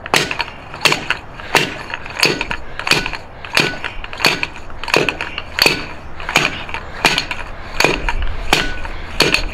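Steady run of metal-on-metal strikes, about one and a half a second, each with a short ring: a pipe slammed along a CV axle shaft to drive off a stubborn CV joint.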